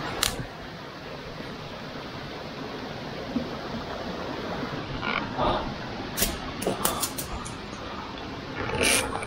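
Hikers forcing their way through dense undergrowth: rustling leaves and brush with a few sharp snaps and clicks, over a steady hiss.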